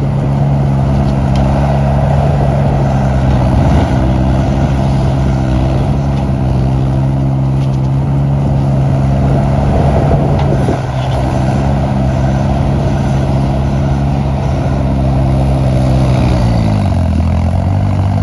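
Small skid-steer loader's engine running steadily at high revs while clearing snow. Near the end its pitch sags briefly and then climbs back.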